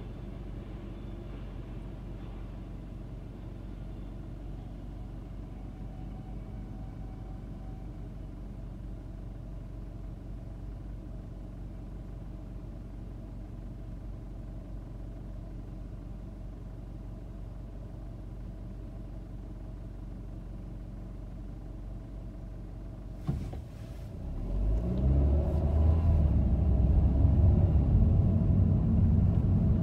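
Car engine idling with a steady low hum while stopped, then a click about 23 seconds in and the car pulls away, engine and road noise rising and staying louder.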